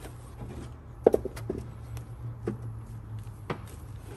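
Cylinder head of a 1.8 F18D4 engine being shifted by hand onto its locating dowels on the block, giving a few light metal knocks and clicks, the loudest about a second in. A steady low hum runs underneath.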